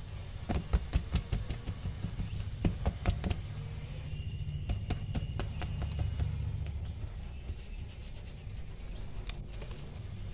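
Hands handling and pressing paper onto a notebook page. A quick run of taps and rubs comes in the first few seconds, then softer handling, all over a low steady hum.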